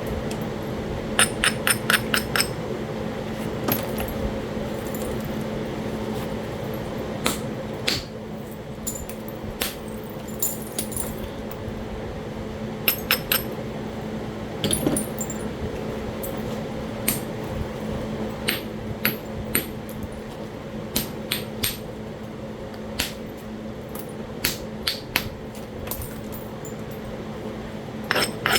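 Flintknapping on Talahata quartzite: sharp stone-on-stone clicks and taps as the piece is worked. They come in a quick run of about six near the start, then as single strikes, pairs and short clusters throughout. A steady low hum runs underneath.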